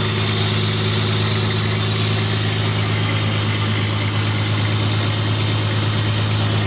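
Fishing boat's engine running steadily, a constant low hum that does not change in pitch or level.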